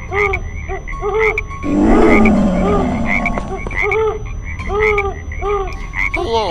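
Frogs croaking in a steady rhythm, about three short croaks a second. A louder, rough noisy sound breaks in from a little under two seconds to about three seconds in, and a falling tone sweeps down just before the end.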